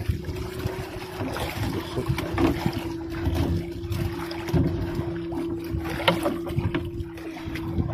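Small boat engine running steadily, while a wet fishing net is hauled by hand over the gunwale with irregular rustles and splashes.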